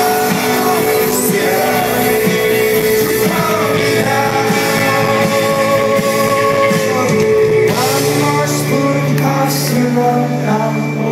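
Live rock band playing with a lead singer, at full loudness throughout. A low held bass note comes in about eight seconds in.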